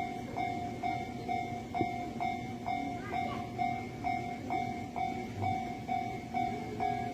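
Japanese level-crossing warning bell ringing, an electronic two-tone clang repeating steadily about twice a second, signalling that the crossing is closed for an approaching train.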